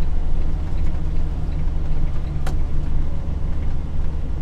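Semi truck's diesel engine and road noise as heard inside the cab while driving: a steady low drone, with a single sharp click about halfway through.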